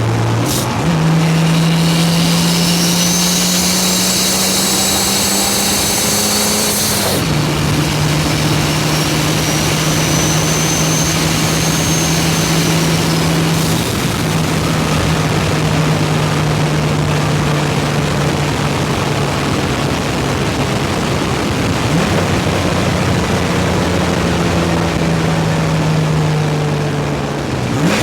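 Turbocharged 3800 V6 Camaro engine pulling hard under load, its pitch climbing with a rising turbo whistle over the top, then dropping as the whistle cuts off at upshifts about seven and fourteen seconds in, before it runs on steadily.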